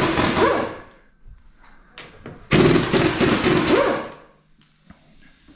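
Impact wrench rattling in two bursts of about a second and a half each, loosening a car wheel.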